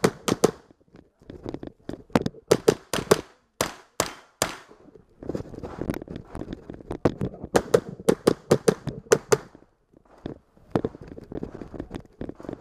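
Rapid strings of mini-rifle shots in quick succession, sharp cracks several to the second, broken by short pauses between strings.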